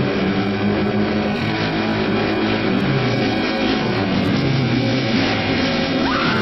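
Dense, droning haunted-house soundscape: a noisy, grinding texture under low sustained notes that shift in pitch every second or so. A high tone slides up and holds just before the end.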